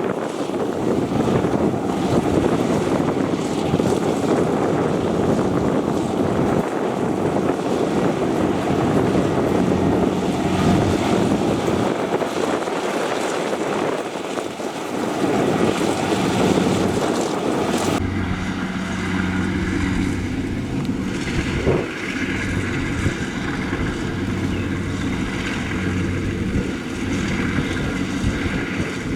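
Rice combine harvester running, with wind buffeting the microphone. About two-thirds of the way through, the sound changes abruptly to a steadier, lower engine hum.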